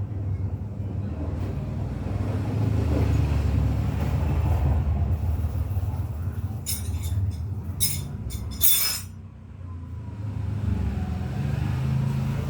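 Steady low motor-vehicle rumble, with a quick run of sharp metal clinks about seven to nine seconds in.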